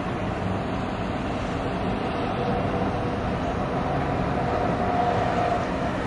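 Steady, distant rumble of city traffic, with a faint higher tone swelling about four to five seconds in.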